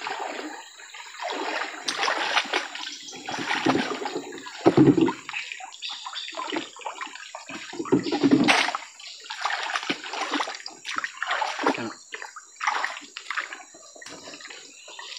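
Shallow river water splashing and sloshing in irregular bursts as a fishing net is hauled up out of the water by someone wading in it.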